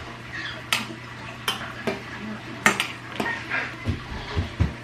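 A metal spoon stirring a pot of cooking meatballs, clinking sharply against the pot about once a second.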